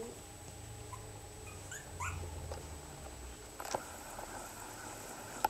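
Newborn Cavalier King Charles Spaniel puppies whimpering, a few faint, short rising squeaks.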